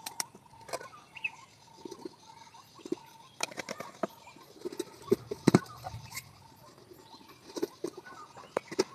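Scattered light taps and knocks of hands working a ball of dough on an aluminium plate and handling a small oil jar and a rolling pin, with a faint steady high tone behind.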